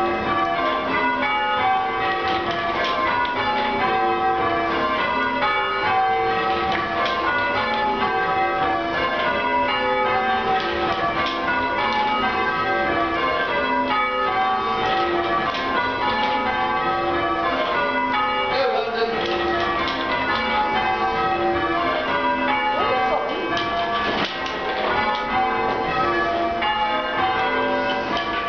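Change ringing on a ring of six church bells, tenor 11 cwt in G: the bells strike one after another in a steady, rapid sequence, heard from the ringing chamber beneath them.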